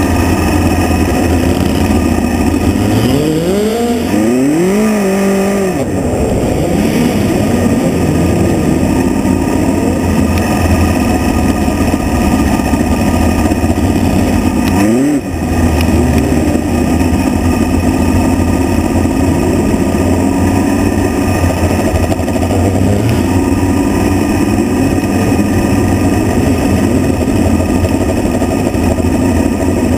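Midget race car engine running hard on a dirt oval, heard from onboard the car. Its pitch swells up and falls back about four seconds in, and dips then climbs sharply around fifteen seconds.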